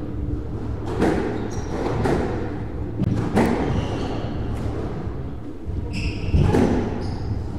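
Squash rally: the rubber squash ball is struck by rackets and smacks off the court walls in several sharp, echoing hits. Court shoes squeak on the wooden floor as the players move, over a low steady hall hum.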